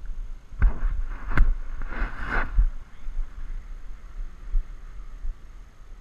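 Footsteps and shoe scuffs of a player moving on a hard tennis court, with one sharp knock about a second and a half in. Low wind rumble on the microphone runs under it.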